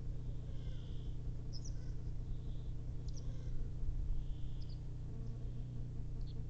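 Short, thin high bird chirps, one about every second and a half, over a steady low hum.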